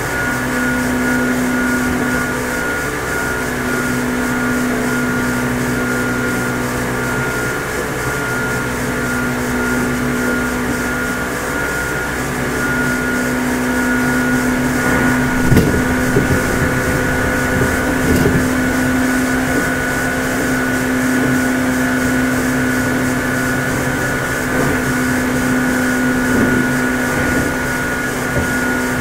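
Meitetsu 6800 series electric train running: a steady low hum with a high steady whine over it, and a few low thuds about halfway through.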